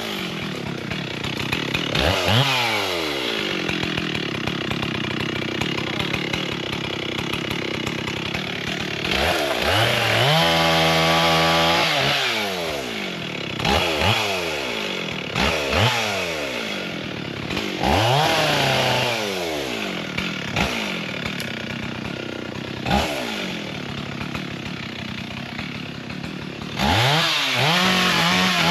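Gas chainsaw engine running and cutting wood, revved up and let back down over and over, held at high revs for a couple of seconds near the middle.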